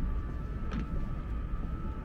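Steady low rumble of distant city traffic, with a faint steady high tone and a brief faint blip about three-quarters of a second in.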